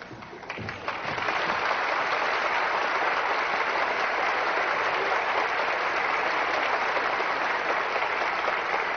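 Live theatre audience applauding, building up about a second in and then holding steady.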